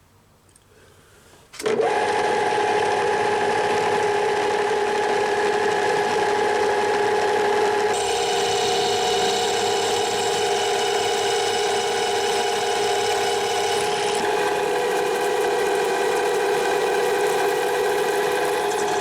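Milling machine switched on after a quiet moment, running steadily with a geared whine of several steady tones. The tone changes about eight seconds in and again about fourteen.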